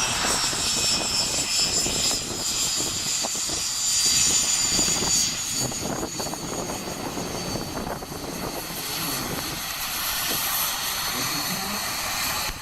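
BAE Hawk jet trainer's turbofan engine running at takeoff power, a high jet whine whose tones slowly fall in pitch. Wind buffets the microphone throughout.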